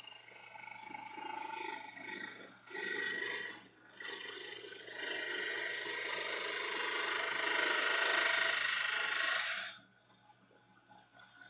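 Rasping and scraping on a black thermoformed plastic guitar-body shell. A short loud burst comes about three seconds in, then a long steady stretch that stops suddenly near the end.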